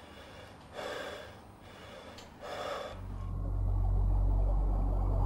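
A man breathing hard from heavy exertion, with two deep breaths about a second and a half apart. About three seconds in, a low droning rumble sets in and grows louder.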